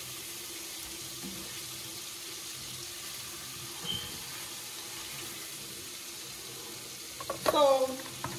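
Hot oil and pan juices sizzling steadily in a pot on the stove after the sausage has been lifted out, with a faint steady hum underneath and a light tap of tongs about four seconds in.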